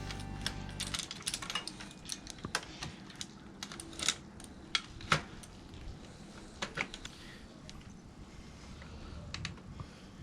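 Irregular light clicks and taps of small metal tools and parts being handled during bicycle hub work, some louder strikes among them.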